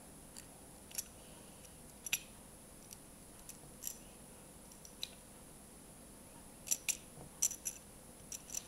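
Metal pliers and spinnerbait wire handled while floral wire is crimped flat: scattered faint, sharp metallic clicks, then a quicker run of clinks near the end.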